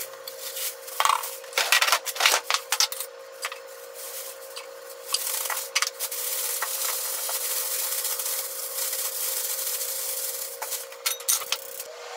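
Plastic bag crinkling and rustling as drained lotus root slices are coated in potato starch inside it: sharp crinkles at first, then about five seconds of steady rustling while the bag is shaken, and a few crinkles near the end. A faint steady hum runs underneath.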